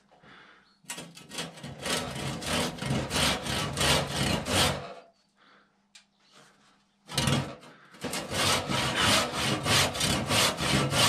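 Handsaw cutting into an oak rafter with quick back-and-forth strokes. The sawing runs for about four seconds, stops for about two, then starts again.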